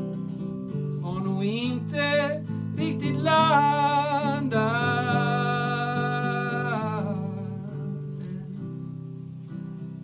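Male voice singing over a strummed acoustic guitar, rising into one long held note with vibrato that ends about seven seconds in, after which the guitar carries on alone.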